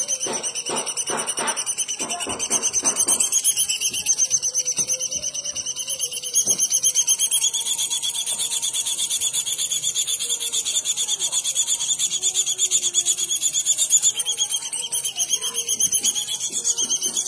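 A bird's continuous, high-pitched, rapidly pulsing trill, wavering slightly in pitch, recorded as song material for training songbirds. During the first three seconds a run of lower pulses comes through beneath it.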